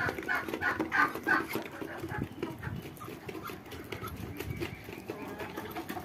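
Free-range hens clucking in a quick run of short calls, about three a second, that soften after the first second and a half, with light taps of beaks pecking feed from a plastic bowl.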